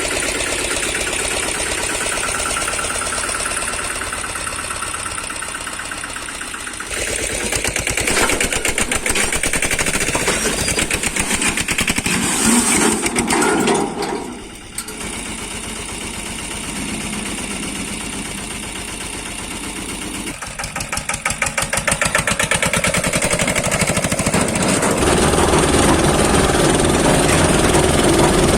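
Diesel engine of working machinery running, its pitch and loudness changing every few seconds, with a brief drop about halfway through.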